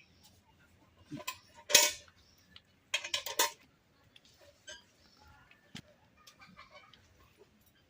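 Metal pots and utensils clattering: a few knocks, the loudest near two seconds in, then a quick run of clinks at about three seconds. Hens cluck faintly in the second half.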